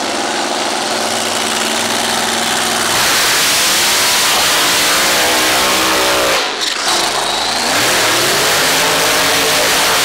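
Top Fuel dragster's supercharged nitromethane V8 idling at the start line, then running much louder in a tyre-smoking burnout from about three seconds in. The sound breaks off briefly about six and a half seconds in, then a fuel engine revs up and runs on steadily.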